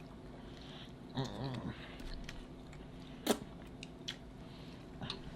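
Close chewing and wet mouth sounds, with scattered small smacks and clicks. A short hummed murmur comes about a second in, and one sharp click, the loudest sound, comes a little past three seconds in.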